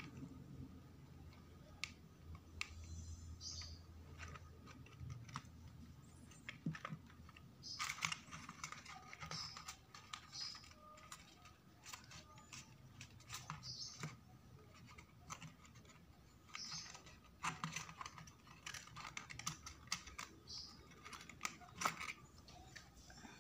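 Faint handling noises of papercraft work: small paper model parts, metal tweezers and a plastic glue bottle being picked up, pressed and set down on a cutting mat. They come as a scattered run of small clicks and short rustles, busier in the second half.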